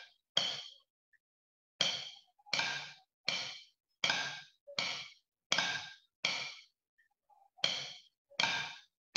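Drumsticks striking a practice pad, playing a snare drum line at an even 82 beats per minute: single dry strokes about three-quarters of a second apart, with a beat left out as a rest twice.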